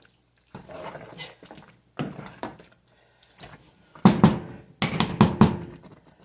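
Wooden spoon stirring thick bitter-leaf and peanut ndole in a pot, with two clusters of loud short bursts about four and five seconds in.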